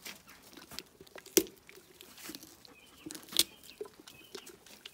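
Pony biting and chewing a carrot: a run of small crisp crunches, with two sharper snaps about a second and a half in and again about two seconds later.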